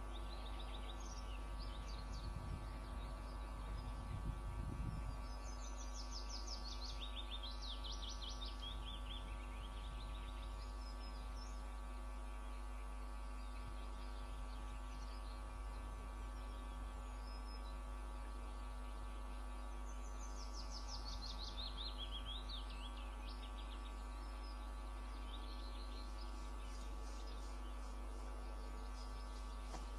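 Steady electrical hum, with a wild bird singing a quick, falling trill of high notes in the background twice. There are a few low rumbles in the first few seconds.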